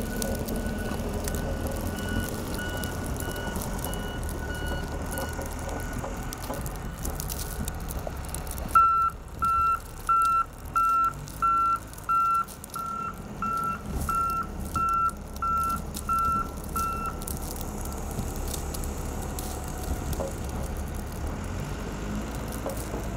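Case wheel loader pushing snow: its diesel engine runs steadily while a backup alarm beeps. The beeping is faint at first, then loud and even, about two beeps a second, for some eight seconds near the middle, after which the engine is heard alone.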